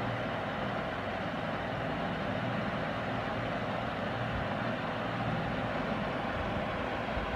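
12 V electric diaphragm pump of a battery knapsack sprayer running steadily, an even motor hum and buzz that holds at one level.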